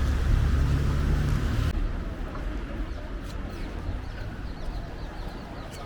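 A low engine rumble, such as a vehicle passing, for the first couple of seconds, cutting off abruptly. It gives way to quieter street background with faint bird chirps.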